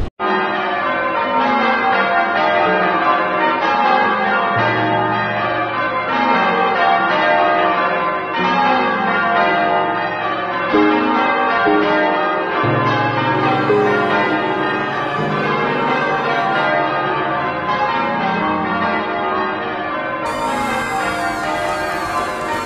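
Church bells pealing: several bells ringing at once, their tones overlapping and hanging on, with a deep bell sounding in twice, about four seconds in and again about twelve seconds in.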